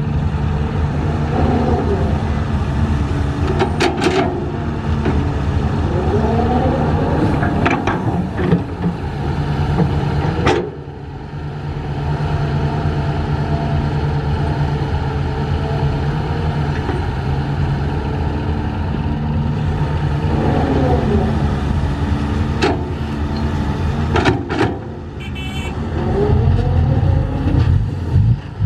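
Heavy construction machinery running: a steady, deep engine drone with pitch glides that rise and fall several times and a few sharp clicks.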